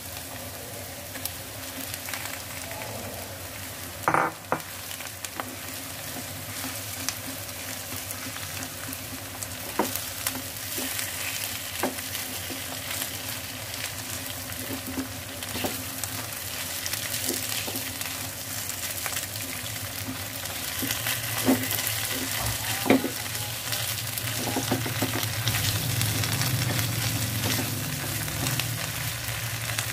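Corned beef and chopped onions sizzling in hot oil in a nonstick frying pan, stirred with a silicone spatula that scrapes and taps against the pan now and then. There is one loud knock about four seconds in, and a low hum joins in during the last third.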